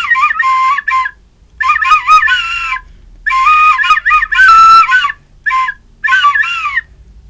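Chinese flute playing a melody in short phrases of a few notes, with quick slides between notes and brief pauses between phrases.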